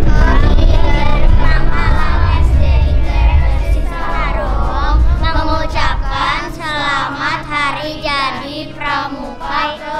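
Children singing a song together over a backing music track. A heavy bass underneath drops away about six seconds in, leaving the voices more exposed.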